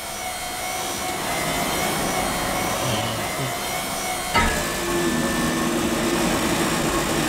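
Excavator's engine and hydraulics running as its arm moves: a steady mechanical whir, with a sharp clack about four seconds in, after which a lower steady hum joins.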